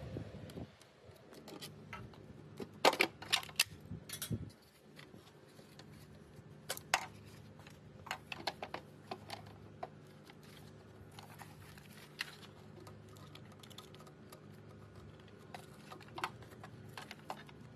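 Faint, scattered clicks and taps of hand work on a Jeep Wrangler JK tail light: a screwdriver taking out the mounting screws, the plastic lamp housing being pulled off and its wiring plug handled. The busiest run of clicks comes about three to four seconds in, with smaller ones later.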